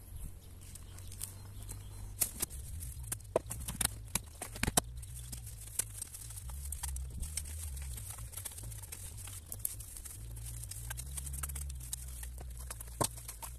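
Garden fork turning a pile of biochar and horse manure: irregular clicks and crunches of charcoal pieces knocking together and the fork scraping the ground, many in quick succession.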